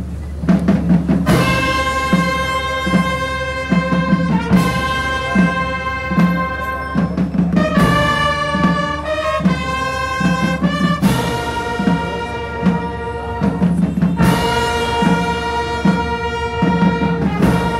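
Brass band playing a slow funeral march: long held brass chords that change about every three seconds, over steady drum beats.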